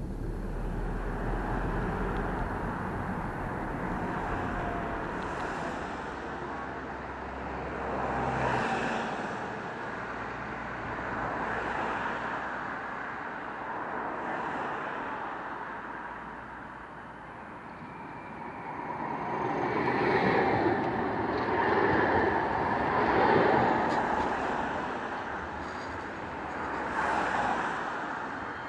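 Road traffic: vehicles passing one after another, the noise swelling and fading several times and loudest about twenty to twenty-four seconds in. For the first few seconds a car's low engine and road rumble is heard inside the cabin.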